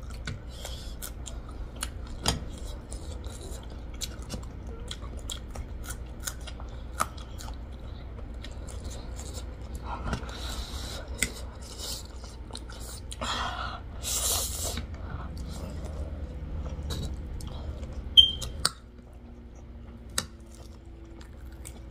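Close-miked eating of spicy instant noodles: wet chewing and slurping, with sharp clicks of a fork and chopsticks against the plates. The loudest clink comes about 18 seconds in.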